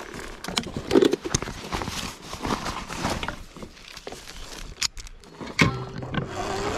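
Dirt bike being moved by hand through brush: dry twigs and branches crackling and snapping against it, with irregular knocks and rustling. Near the end a motor starts running with a rising whine.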